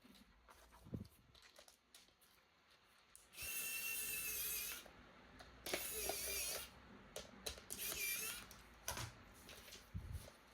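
A small electric motor in a radio-controlled toy whirring in three short bursts, each with a wavering high whine over a hiss, with a few light knocks between them.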